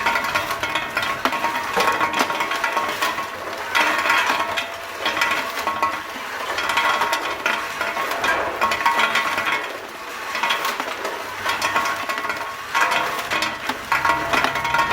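Ginkgo nuts rattling and clinking as a sorting machine runs, a steady mechanical clatter that swells and eases every few seconds.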